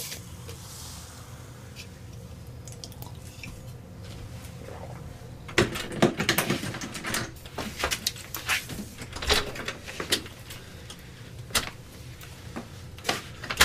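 A low steady hum, with a run of irregular clicks, knocks and clatter starting about five and a half seconds in.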